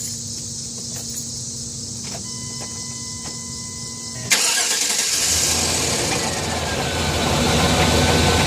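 Chevrolet 350 TBI V8 cranks and starts about four seconds in, then settles into running, louder from about seven seconds in. The owner is chasing a knock from this engine that he thinks may come from the flex plate. Before the start, a pulsing tone sounds from about two seconds in.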